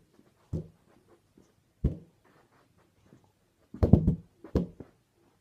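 Balloon being kicked up repeatedly with socked feet: dull, hollow thumps, spaced a second or more apart at first, then a quick run of louder thumps near the end.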